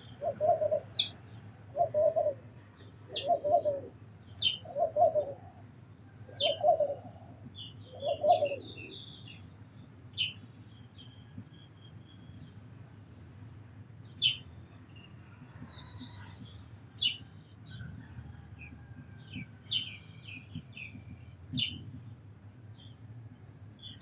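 Sparrows chirping in short, sharp notes, over a dove cooing in an even series of about seven low coos that stop about eight seconds in.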